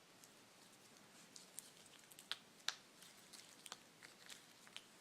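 Small chocolate eggs tapping and clicking against each other as they are handled, in scattered light ticks with two sharper clicks about halfway through.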